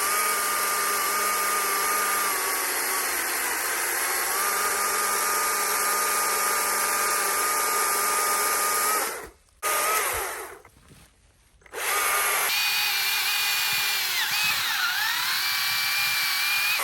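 Two-stroke chainsaw running at full throttle while cutting through a log. It stops about nine seconds in, is blipped once, then cuts again, its pitch sagging briefly partway through as it bogs in the cut when pushed.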